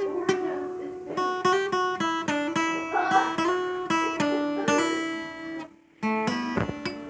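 Acoustic guitar playing a run of picked and strummed notes. It stops briefly near the end, plays a few last notes, then rings out.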